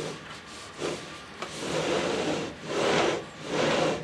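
Timing belt pulled by hand over its pulleys, turning the lead screws of a DIY CO2 laser cutter's Z-axis bed: a rubbing, grinding sound in several strokes, each half a second to a second long.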